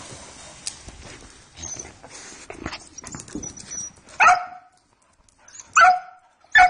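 Dogs scuffling close to the microphone with scattered clicks, then a dog barking three times, in short sharp barks, in the second half.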